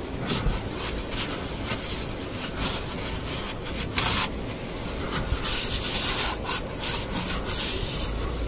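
Rubbing and scuffing from a gloved hand working around the gearbox drain plug, with a short hiss about four seconds in.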